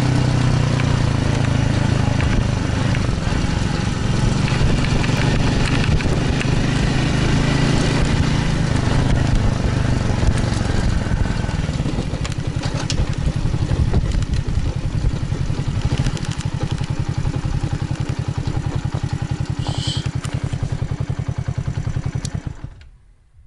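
Small motorcycle engine running under way as the bike rides over a field track. About halfway through it drops to a slower, even pulsing beat as the bike slows, and the sound cuts off just before the end.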